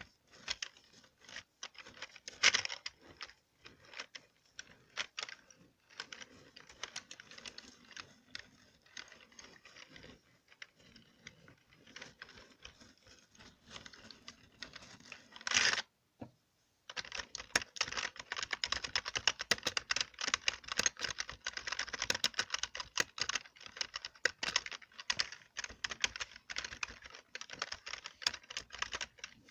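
Computer keyboard keys being tapped: scattered, softer clicks at first, then fast, continuous typing from about halfway through. A single louder brief sound comes just before the fast typing starts.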